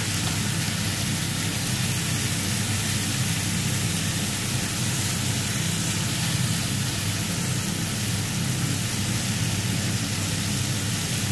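Chicken tocino pieces frying in a nonstick pan: a steady sizzle.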